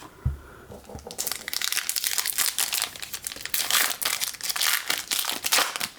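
Trading-card packaging crinkling and rustling in the hands, dense and irregular from about a second in, after a soft thump at the start.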